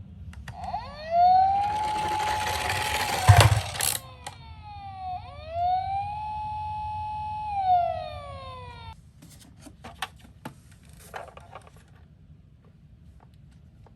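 Toy ambulance minicar's electronic siren wailing: a tone that rises, holds and falls, repeating, then cutting off about nine seconds in. In the first few seconds a rushing rattle runs over it and ends in a sharp knock. Light plastic clicks and taps follow once the siren stops.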